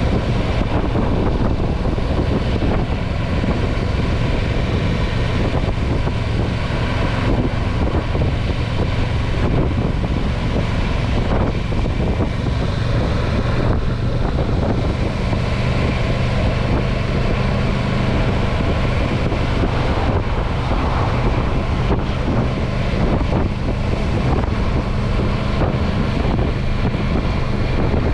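Motorcycle engine running steadily as the bike rides along, with wind noise on the bike-mounted microphone; the engine note shifts a little in pitch now and then.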